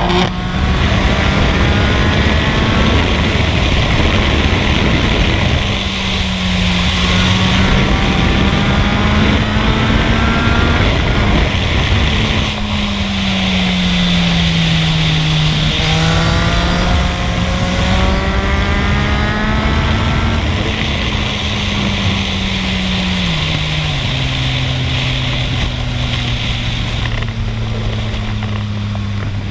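Yamaha MT-09's three-cylinder engine running under way. Its pitch climbs in three separate runs as the bike accelerates and eases off between them, over a steady rushing noise.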